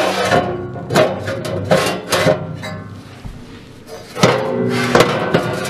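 Steel ash drawer of a Pioneer Princess wood cook stove being worked back into its slot under the firebox, with several metal clunks and scrapes, over background music.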